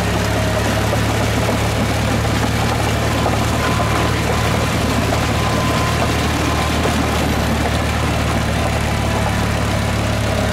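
Small crawler bulldozer's diesel engine running steadily under load as its tracks churn through deep, soft peat mud.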